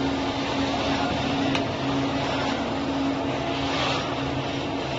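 Plastic film squeezing machine running, pressing washed plastic film out of its discharge: a steady mechanical drone with a constant hum.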